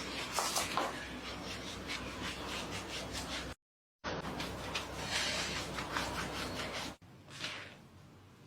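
Hands rubbing and stroking over bare skin in a back massage, a close, continuous friction sound. It cuts out completely for a moment about a third of the way in and turns quieter near the end.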